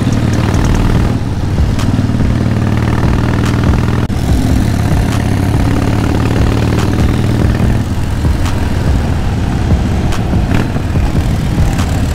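Harley-Davidson V-twin motorcycle engine running steadily at cruising speed, heard from on board the bike, with small rises and falls in engine speed.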